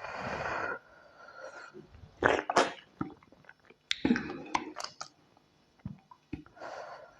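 Close-miked eating sounds: a breathy slurp at the start and another near the end, with sharp wet mouth clicks and smacks of chewing in between.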